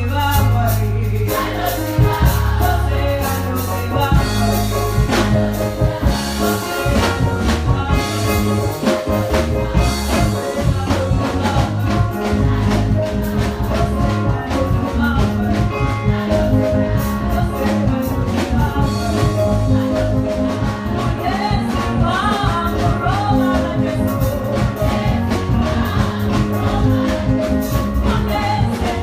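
Mass choir singing a gospel song with instrumental backing, a bass line and a steady percussive beat.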